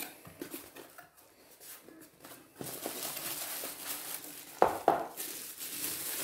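Cardboard box flaps and the plastic wrapping around a replacement battery pack rustling and crinkling as the pack is lifted out, from about two and a half seconds in. There are two sharp knocks partway through.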